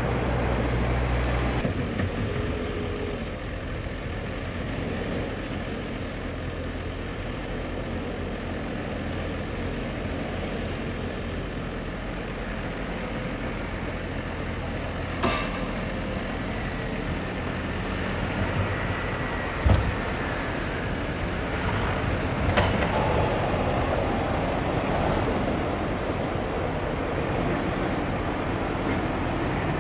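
Farm tractors pulling dump trailers loaded with snow, their engines running steadily as they pass, with a few sharp knocks about halfway through.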